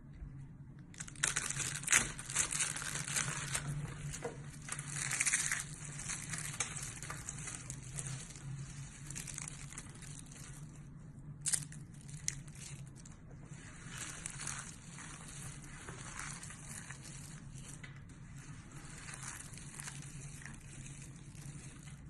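Hands crushing a carved bar of dry soap into crumbs: a dense crackling crunch, loudest in the first few seconds. Then softer crackling as the fingers rub and sift through the heap of soap flakes, with one sharp snap about eleven seconds in.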